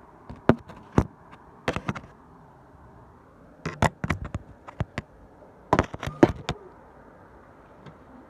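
Irregular sharp clicks, about a dozen in small clusters, over a steady low hiss.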